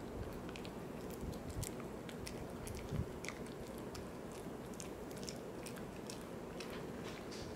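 Poodle chewing a Virbac C.E.T. VegiDent dental chew: a string of small crunching clicks, with one louder crunch about three seconds in.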